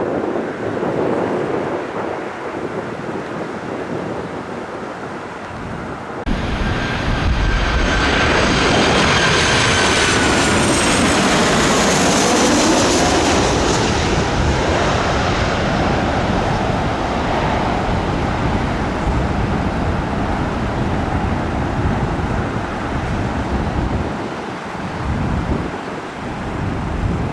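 Jet airliner passing close by: a high turbofan whine that falls in pitch as it goes past, over a broad engine rumble that slowly fades. Before it, about the first six seconds hold a steadier windy roar.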